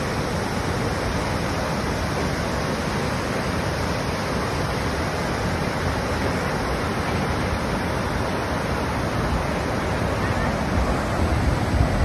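Steady rush of a large waterfall and river rapids over rock ledges, with a few low bumps on the microphone near the end.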